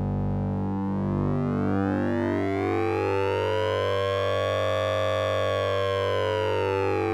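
Synthesized 'Sync'N'Ring' effect tone made with the Orange Vocoder plugin, with a siren-like character: a steady low drone under a stack of overtones that sweep slowly upward, peak about five seconds in, then slide back down.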